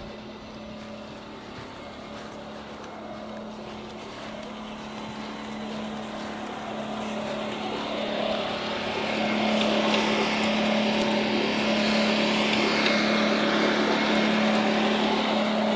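Radio-controlled scale truck-and-trailer rig hauling a 1/14 hydraulic excavator, its electric drive giving a steady mechanical hum with a whine. The hum grows louder about eight seconds in as the rig comes close.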